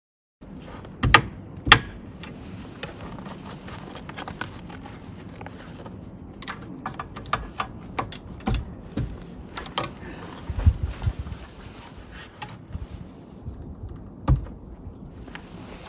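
Irregular knocks, clicks and scrapes of hands-on work on a wood stove's metal chimney pipe, with two loud knocks about a second in and another near the end.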